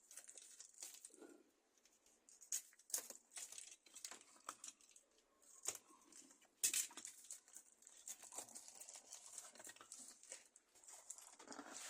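Crinkling and rustling of shipping packaging being unwrapped by hand, with many scattered clicks and a bit of tearing.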